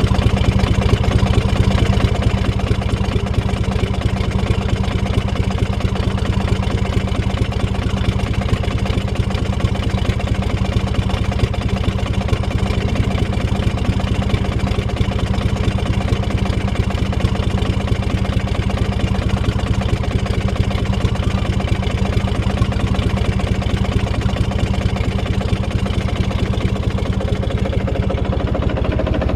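Yamaha 71N (D200KH) 74 hp inboard boat engine running steadily just after starting, with a low, even note. The seller says it is running with a good sound.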